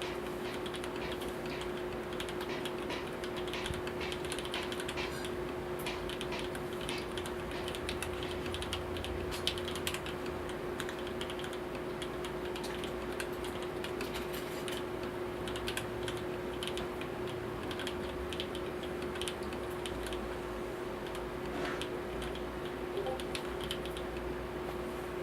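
Custom 65% mechanical keyboard with lubed FEI v2 switches and GMK Space Cadet keycaps being typed on steadily: a fast stream of key clacks, thinning out near the end. A steady low hum runs underneath.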